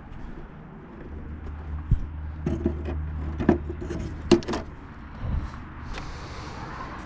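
A run of sharp metallic knocks and clinks from handling scrap air-conditioner parts, the loudest about four seconds in, over a low steady hum that starts about a second in and fades out near five seconds.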